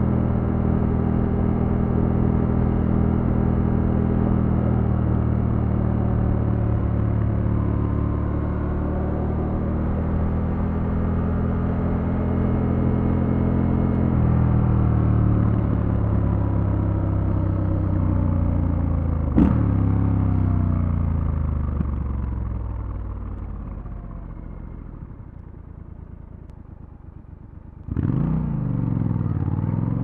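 2024 Triumph Scrambler 1200 X's 1200 cc parallel-twin engine and exhaust, heard from the rider's seat: a steady cruising note for about the first half, then the pitch falls and the sound fades as the bike slows. There is a sharp click in the middle, and the engine comes back suddenly and loudly near the end.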